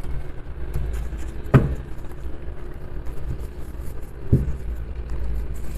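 Tarot cards handled and set down on a cloth-covered table, with two sharp knocks a little under three seconds apart, over a steady low rumble.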